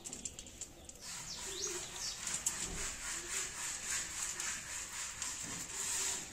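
Cats crunching dry kibble from plates, a run of short irregular clicks, with birds calling in the background.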